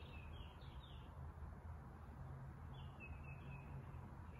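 Faint bird chirps: a quick run of short, falling chirps in the first second and another short run about three seconds in, over a low steady hum.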